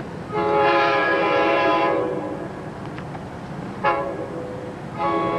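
Horn of an approaching Long Island Rail Road train sounding three blasts. A long blast of nearly two seconds comes just after the start, a short blast comes just before four seconds, and another long blast begins near the end.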